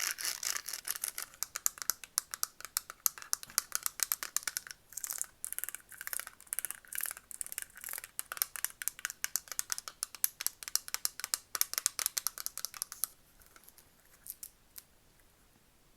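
Rapid, light ASMR tapping on hard objects, many quick taps a second. The tapping stops about thirteen seconds in, leaving only a few faint taps.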